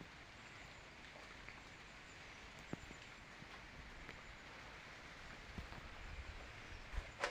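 Faint, steady hiss of rain falling during a thunderstorm, with a few soft ticks of drops.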